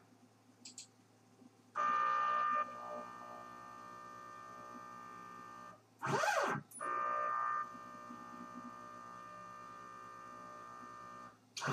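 NEMA 23 stepper motors of a CNC 6040 router moving the axes during a touch-plate corner-finding probe routine. A short loud whine about two seconds in gives way to a quieter steady whine. About six seconds in comes a quick pitch sweep down and back up, and the pattern repeats, with another sweep near the end.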